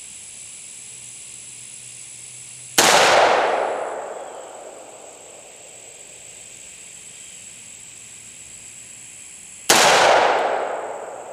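Two single shots from a 300 AAC Blackout pistol, about seven seconds apart, each followed by a long fading echo.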